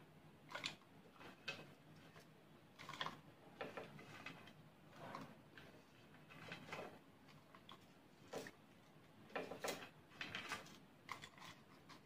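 Faint, irregular clicks and rustles of roasted dry coconut and onion pieces being picked up by hand and dropped into a steel mixer jar.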